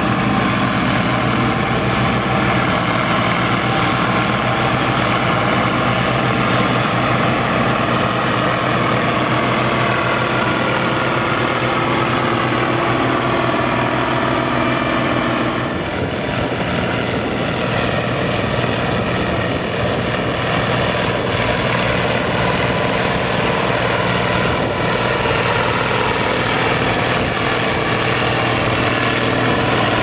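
Tractor engines running steadily under load with a tractor-drawn forage harvester picking up grass for silage. The mix of engine tones shifts about halfway through.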